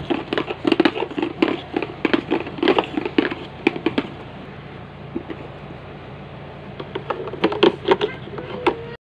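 Hand scrubbing and tapping on a plastic toy ride-on car: a quick run of clicks and rubbing noises that thins out about four seconds in and picks up again near the end.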